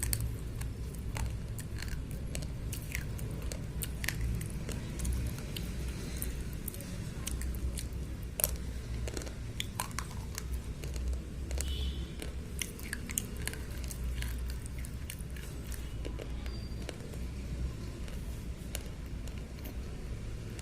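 Slate pencils being bitten and chewed, with irregular sharp crunching clicks over a low rumble.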